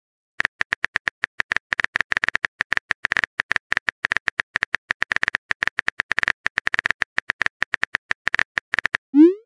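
Simulated phone keyboard typing clicks: a fast, irregular run of short taps as a text message is typed. Near the end comes a short rising swoosh, the message-send sound.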